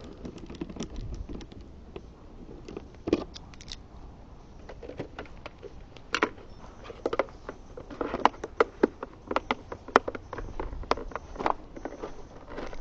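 Clicks, knocks and rattles of an outdoor equipment box being closed and locked up: one firmer knock about three seconds in, then a quick run of small clicks from about halfway through.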